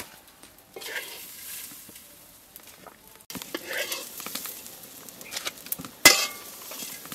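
Pot-side cooking noise as stir-fried rice goes into a steaming pot of fish broth: soft stirring and scraping with a sizzling hiss. One sharp metallic clank of utensil on pot comes about six seconds in.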